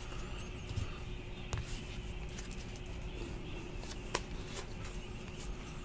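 Trading cards being thumbed through in the hands: a few faint clicks and slides of card stock, the sharpest about four seconds in, over a steady low hum.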